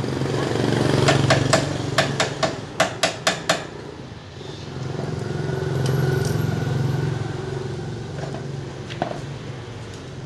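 Small motorcycle engine, from a Honda Cub 50 being modified, revving up and dropping back twice. Between the two revs comes a quick run of about nine sharp knocks.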